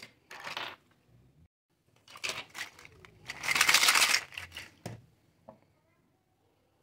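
Plastic toy kitchen pieces being handled: rustling and clattering of hard plastic, loudest just past halfway as the pink plastic basket of toy fruit and vegetables is moved about, followed by a couple of sharp clicks.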